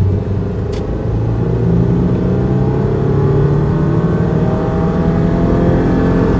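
Car engine revving as the car accelerates, heard from inside the cabin, its note climbing steadily in pitch over several seconds.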